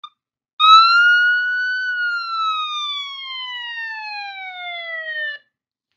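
Fire truck siren sound effect: one wail that rises briefly, then falls slowly and steadily for about three and a half seconds before cutting off.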